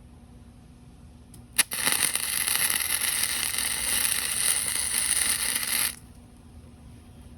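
Electric welding arc struck with a sharp click about a second and a half in, then crackling steadily for about four seconds as a weld bead is laid, before stopping abruptly.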